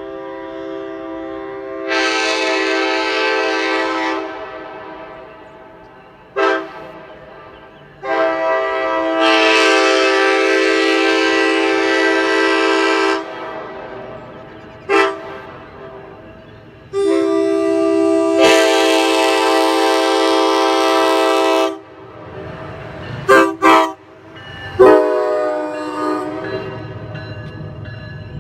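Nathan AirChime K5LA big-bore five-chime air horn (a 1980 Amtrak horn) sounding its chord: three long blasts with a short toot between each, each blast echoing back and fading. Near the end come a few short, sharp blasts.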